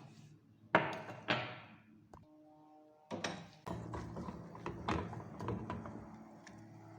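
Kitchen utensils and containers being handled while herbs are spooned into a pot: two sharp knocks about a second in, then a run of lighter clicks and rustling.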